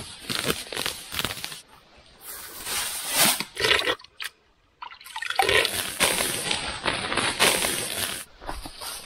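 Dry grass being pulled up and gathered by hand: dense rustling and tearing of stalks. Around the middle it breaks off for a hand splashing in shallow stream water and a moment of near silence, then the grass pulling resumes.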